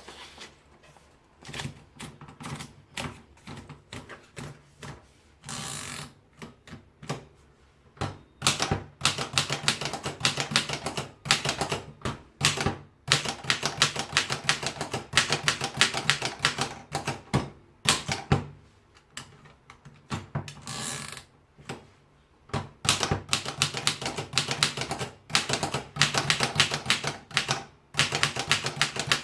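Corona No. 3 three-bank folding portable typewriter being typed on. A few slow, scattered keystrokes at first, then fast, continuous typing from about eight seconds in, broken by short pauses.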